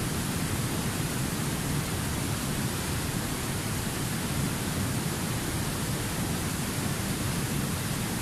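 Steady rush of fast river rapids pouring over rocks.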